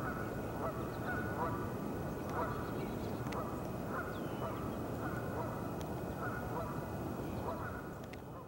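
Geese honking repeatedly over a steady noisy background, fading out near the end.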